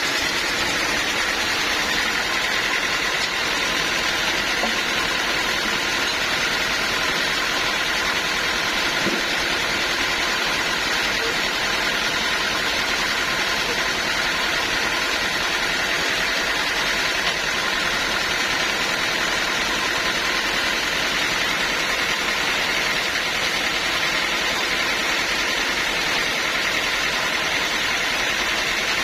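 Band sawmill running steadily: a loud, unchanging mechanical drone with no breaks or changes.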